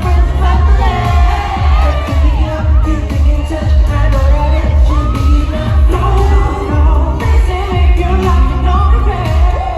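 Male pop vocal group singing live over a loud backing track with a heavy, steady bass beat, played through a venue sound system.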